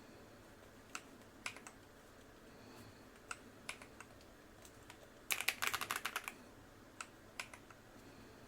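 Keystrokes on a Hybreed TKL 87-key custom mechanical keyboard with TTC long-pole tactile switches and Cherry-profile PC and ABS double-shot keycaps. A few scattered single key presses, then a quick run of about a dozen keystrokes in the middle, then a few more single presses.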